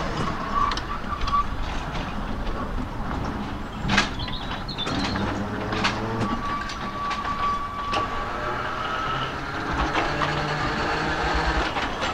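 A narrow-gauge tramcar running along the track: a steady rumble and hiss with scattered sharp clicks, the loudest about four seconds in. A thin, steady high tone sounds for about two seconds just past the middle.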